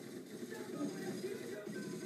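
A film's soundtrack music playing over a classroom's TV and projector speakers, heard across the room.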